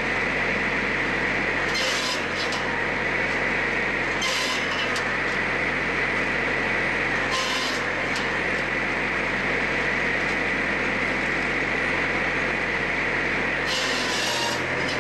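Tajfun Little Ripper docking saw running steadily, a constant hum under a high whine. Four short bursts of hiss come as it saws through wood, the last one longer near the end.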